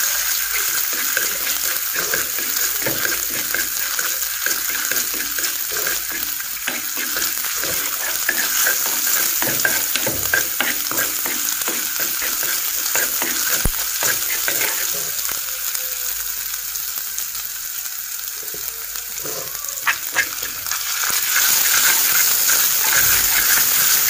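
Ginger-garlic paste sizzling in hot oil in a metal frying pan while a spatula stirs and scrapes it around, with many small scrapes over the steady sizzle. The paste is being fried until it changes colour, and the sizzle grows louder near the end.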